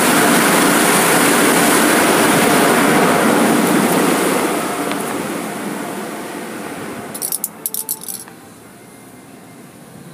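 Car wash tunnel equipment running with a loud, steady rushing noise that fades over the first several seconds. A few short, sharp, high-pitched rattles come near the end.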